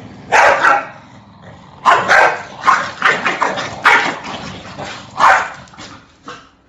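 A dog barking in a string of short, separate barks, about six over five seconds, then stopping near the end.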